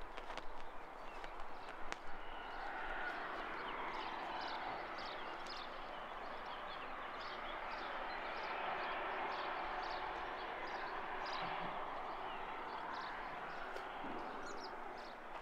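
Footsteps for the first couple of seconds, then a steady outdoor background wash with small bird chirps above it while the walker stands still; footsteps start again near the end.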